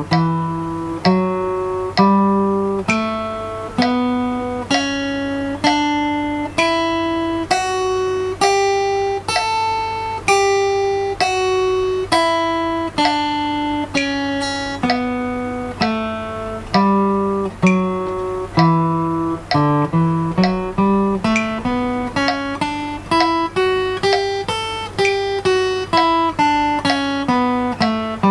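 Acoustic guitar playing a scale one plucked note at a time, climbing and then falling at an even pace of about one note a second. About two-thirds of the way through the notes come twice as fast for another run up and down. It is a timed picking exercise that moves from quarter notes to eighth notes.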